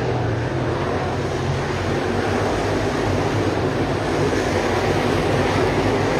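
Several dirt late model race cars' V8 engines running together as the pack circles the track, a steady, unbroken drone.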